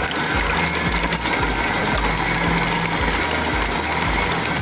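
Electric stand mixer running at high speed, its whisk beating egg whites with cream of tartar in a stainless steel bowl: a loud, steady mechanical whirr. The whites are still at the frothy stage, being whipped toward meringue.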